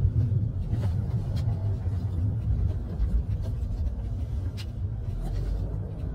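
Steady low road and engine rumble of a moving car, heard from inside the cabin, with a few faint ticks.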